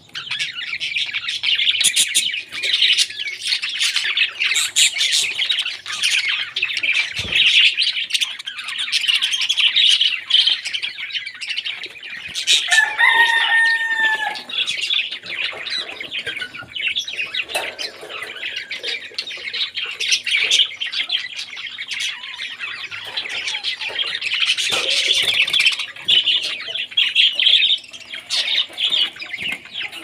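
A flock of budgerigars chattering nonstop, a dense stream of high chirps and warbles. A longer, lower call stands out about 13 seconds in.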